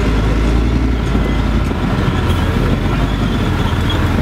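Heavy military truck diesel engines running in a steady low rumble as a convoy passes.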